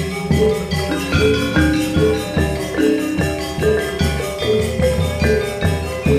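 Balinese gong gamelan playing a tabuh petegak: bronze metallophones and kettle gongs ringing in fast struck patterns over a kendang drum, with a strong low beat about twice a second.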